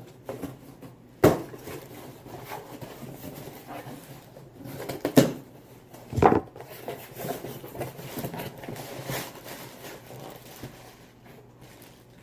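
Hands handling boxed car parts and their packaging: low rustling and shuffling, with three sharp clicks or knocks, about one second in and twice around five to six seconds in.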